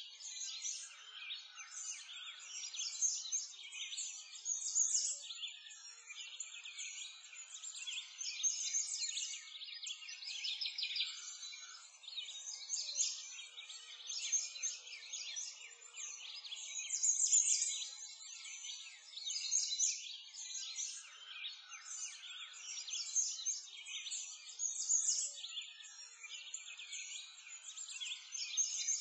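Continuous chorus of many small birds chirping and singing, high-pitched, with nothing low underneath.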